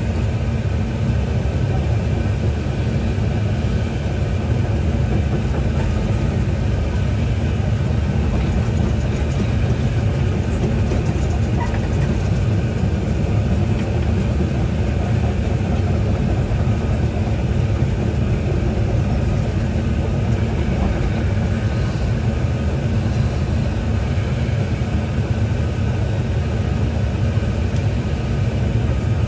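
Hyundai 220 excavator's diesel engine running steadily at an even speed, a constant low rumble as heard from the machine's cab.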